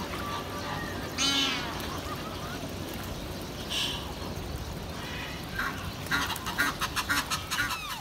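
Water birds calling over the steady wash of the pond's running water: one loud falling call about a second in, a short high call near four seconds, and a quick run of sharp calls in the last two seconds.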